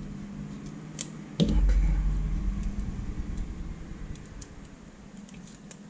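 Small clicks and crinkles of hands working at the taped, wired end of a thin CCFL backlight lamp. A thump about one and a half seconds in is followed by a low rumble that fades away.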